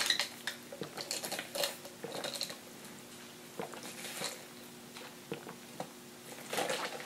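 Faint sipping from a fountain-drink cup through a straw: soft slurps and scattered small clicks, coming and going in short spells.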